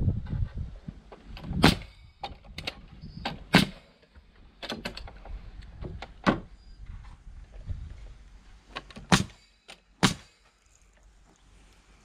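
Pneumatic nail gun firing nails into wooden pallet boards: a string of sharp, irregularly spaced shots, several of them loud, with quieter knocks between.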